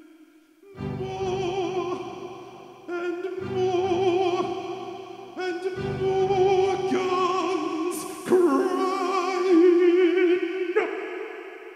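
Operatic male voice singing long held notes with a wide vibrato over slow, low keyboard chords struck about every two and a half seconds.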